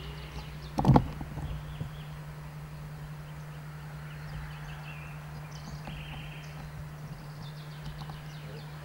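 Outdoor quiet during a minute's silence: birds chirping in short repeated calls over a steady low hum, with a single thump about a second in.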